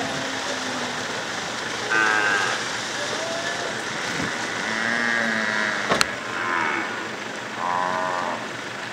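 A herd of cattle splashing at a run through shallow floodwater as riders drive them. Several short drawn-out calls rise over the splashing, and there is a single sharp crack about six seconds in.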